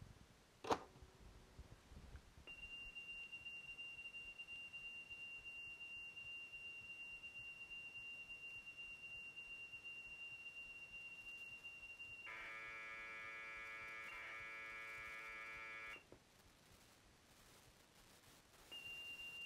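Commodore datasette loading a C64 program, its tape signal heard as audio. One click about a second in as the play key goes down. Then a steady high lead-in tone for about ten seconds and a few seconds of buzzy header data, which stops suddenly. The steady tone returns near the end.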